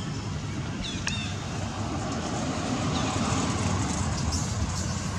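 Steady outdoor background rumble, with a couple of short high chirps and a click about a second in.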